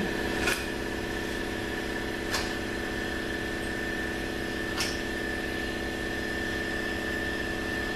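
Steady machine hum with a constant high whine, and three light metallic clicks about two seconds apart as bolts are set into a ZF 6HP26 transmission valve body.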